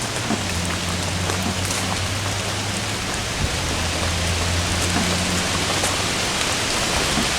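Steady rain falling, with individual drops tapping close by, over a low steady hum.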